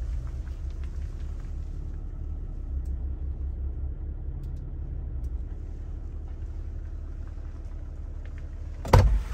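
Jeep's engine idling, heard as a steady low rumble from inside the cabin. A single sharp knock near the end.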